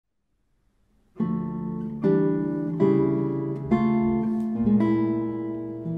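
Classical guitar played fingerstyle. After about a second of silence come five slow chords, each left to ring into the next.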